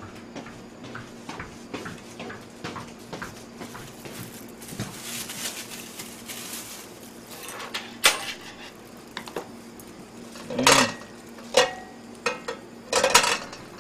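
Scattered clinks and knocks of cooking utensils and a plastic food container on a table, with plastic rustling about five to seven seconds in as disposable plastic gloves are handled. The louder knocks come near the end, over a faint steady hum.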